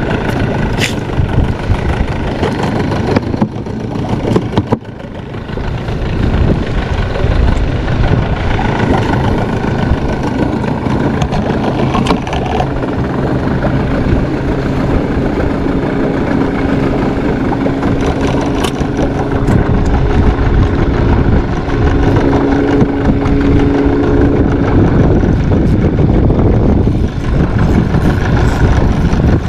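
Steady loud rumbling noise of wind and lapping sea water on an action camera's microphone held just above the waves, with a low hum joining in for several seconds in the middle.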